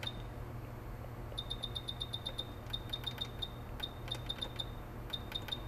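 Short electronic beeps from a hot air rework station's buttons, several a second in quick runs starting about a second and a half in, as its temperature and airflow are being set. A low steady hum lies underneath.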